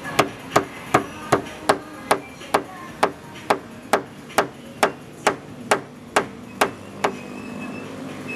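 Paintless dent repair tapping: a small hammer striking a tap-down tool on the car's body panel. About two light, evenly spaced taps a second stop about seven seconds in.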